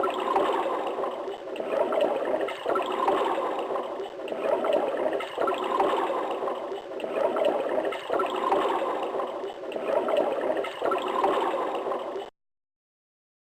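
Toilet water rushing and gurgling, swelling and easing in a regular rhythm about every two and a half seconds, then cutting off suddenly near the end.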